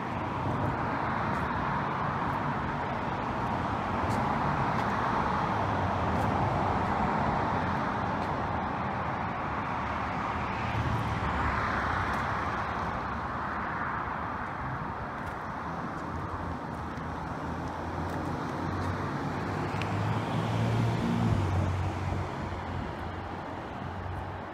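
Steady road-traffic noise: an even hiss of passing vehicles over a low rumble, a little louder near the end.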